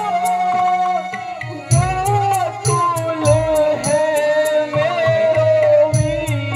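Music: a melody held in long, wavering notes over a drum beat, with a steady run of high ticks like small cymbals.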